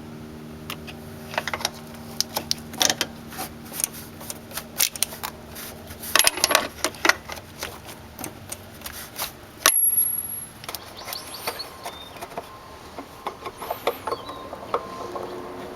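Irregular sharp clicks and clatter, like hard objects being handled, over a steady low hum that fades out a little past halfway.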